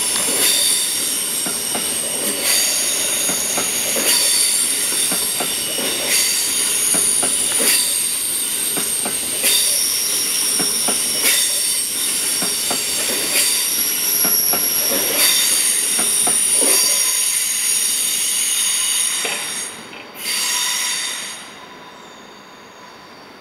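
Wheels of a passing SBB electric passenger train squealing in several steady high tones, with sharp clicks over the rail joints every second or so. The squeal drops away about twenty seconds in after one short last burst, leaving a much quieter rumble as the train pulls away.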